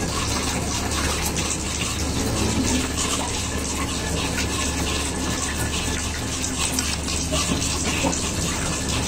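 Steady rush of water pouring and splashing, unbroken throughout, with fine patter in it.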